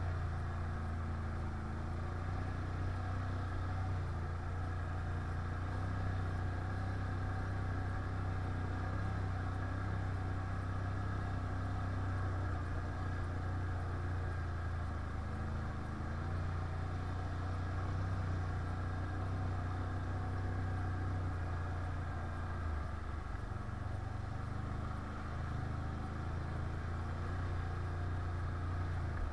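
Can-Am 1000 ATV engine running steadily under way, a constant low engine note that shifts a little about three-quarters of the way through.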